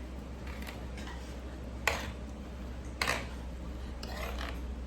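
Eating utensils clinking and scraping against a noodle bowl, with two sharp clicks about a second apart, over a steady low hum.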